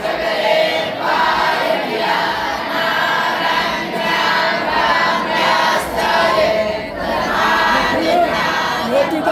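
Many voices chanting together, a group devotional chant with a loosely rhythmic swell and dip about once a second.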